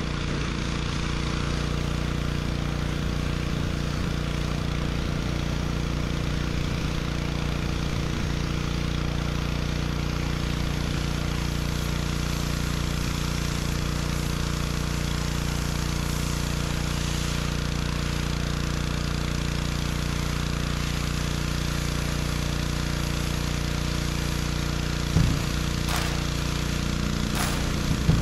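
Gas-engine pressure washer running steadily at full throttle, with the constant hiss of its water spray, and a brief sharp knock near the end.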